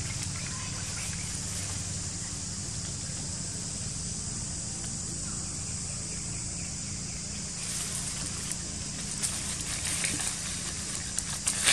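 Steady outdoor background of a low hum and a high hiss. About eight seconds in, leaves and twigs start rustling and crackling, with a few sharp snaps near the end.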